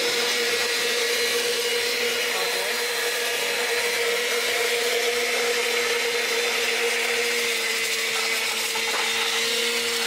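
Countertop electric blender motor running steadily, churning a liquid mix, with an even hum throughout.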